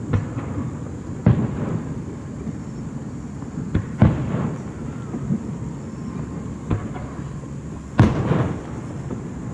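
Aerial fireworks bursting: about six sharp booms, each followed by a rolling echo, over a steady low rumble. The loudest burst comes near the end.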